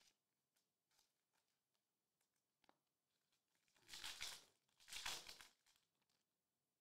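Foil trading-card pack wrapper being torn open: two quick crinkly rips about a second apart, a few seconds in. Before them there are faint light ticks of cards being handled.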